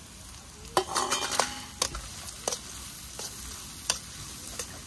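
A spatula stir-frying ingredients in a wok, scraping and clattering against the pan at irregular intervals over a light sizzle. The scraping starts about a second in. The sizzle is modest because the fire under the wok is too small.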